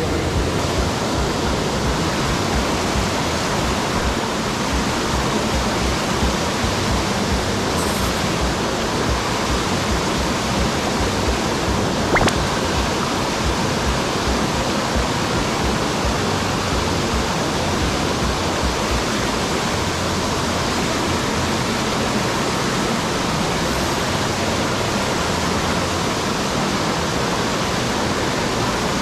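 Steady rush of water from a mountain headwater stream, with one brief click about twelve seconds in.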